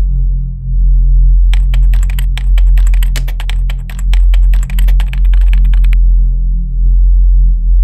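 Computer keyboard typing, a quick run of key clicks from about a second and a half in until about six seconds in. It plays over a loud, steady low drone that runs throughout.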